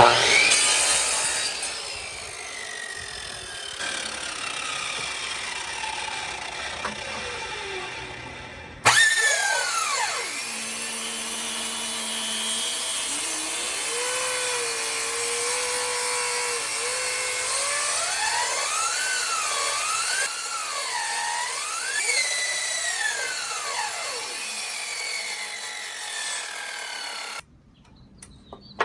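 Small table saw cutting wood: the blade's whine slides down and back up as it bogs under the cut and recovers. There is an abrupt cut to another pass about a third of the way in, and the saw sound stops suddenly near the end.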